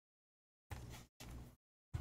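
Faint rustle of trading cards in clear plastic sleeves being handled, heard as two short snatches about a second in and a third near the end, with dead silence in between.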